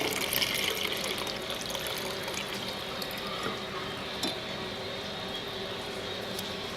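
Steeped herbal infusion being strained and poured into a glass jar: a steady pour of liquid that eases off slightly after the first second.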